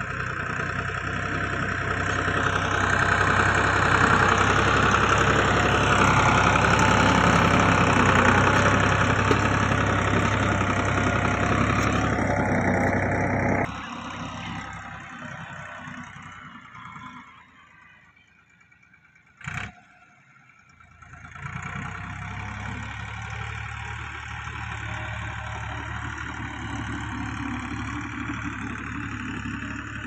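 Bull Power tractor's diesel engine running steadily under load while it pulls a tine cultivator through dry soil, loud at first. It drops off sharply about halfway through and fades almost to silence, with a single click, then comes back running steadily at a lower level.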